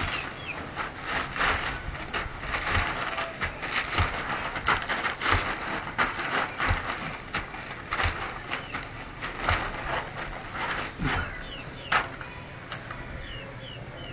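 A breakdancer's body scuffing and rustling on a ground sheet over concrete while spinning windmills, with a soft thump about once a second; it stops about twelve seconds in. Faint bird chirps.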